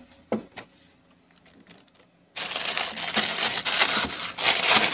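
A couple of light clicks, then from about halfway a plastic bag crinkling loudly as it is handled near the microphone.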